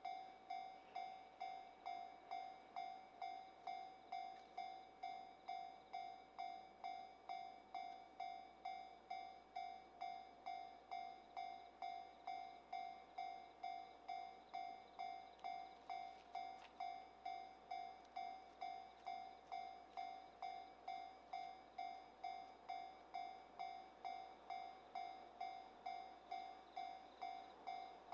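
Railway level-crossing warning bell ringing steadily, a repeated electronic dinging tone just under twice a second.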